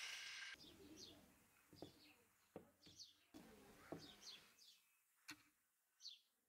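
Faint birds chirping in short, quick, falling chirps, repeated every second or so, with a few soft clicks. The grinding noise of a motor-driven sanding drum cuts off suddenly about half a second in.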